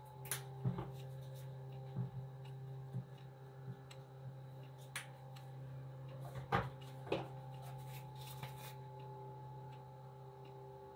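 Scattered light clicks and knocks of small containers and lids being handled as spices are added to a glass jar of chopped vegetables, the sharpest pair about two thirds of the way in, over a steady low hum.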